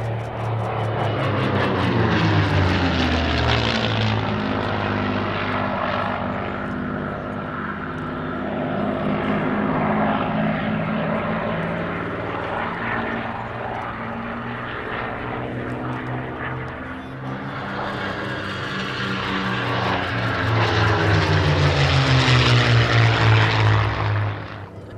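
Merlin V12 piston engines of a Spitfire Mk XVI and a P-51D Mustang flying together, the engine note swelling and sliding down in pitch as they pass. The loudest pass comes near the end and drops away suddenly just before it ends.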